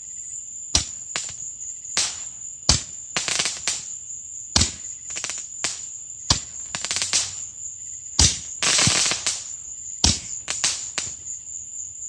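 Boomer M-5000 crackling Roman candle firing: about a dozen sharp pops at uneven spacing, several followed by a short crackle of bursting stars. The longest crackle comes about nine seconds in. Crickets chirp steadily underneath.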